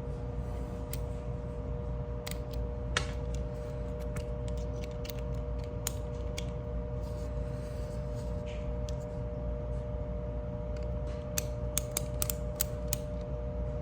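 Scattered small clicks and creaks of a folding knife being taken apart with a Torx driver, as screws are turned and metal parts handled, with a cluster of quick clicks near the end. A steady hum runs underneath.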